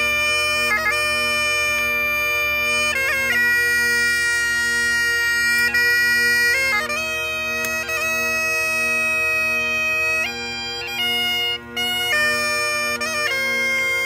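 Bagpipes playing a slow tune: the chanter's melody steps from note to note over the steady, unbroken drones.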